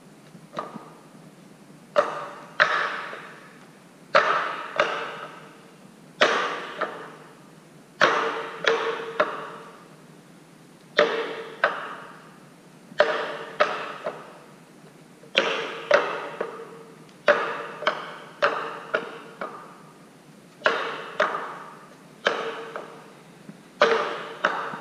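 Three wooden cigar boxes being juggled, knocking against each other in sharp clacks that ring briefly. The clacks come in quick groups of two to four, about every two seconds, with short pauses between.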